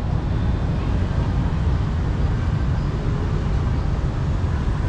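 A steady low rumble with no distinct events in it.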